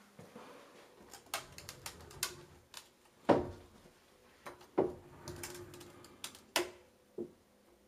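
Bifold closet door opened by hand: a series of light clicks, then several sharp knocks as the panels fold, the loudest about three seconds in.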